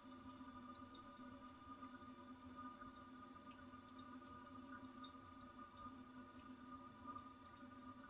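Faint, steady hiss and hum of a toilet cistern refilling after a flush.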